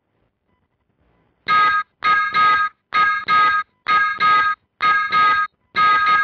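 Morse code practice tone: a steady beep keyed on and off, about ten beeps of about a third of a second each, starting about a second and a half in. A single beep comes first, then pairs about a second apart.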